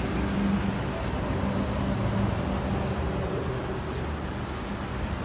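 Steady background road traffic noise with a low engine hum.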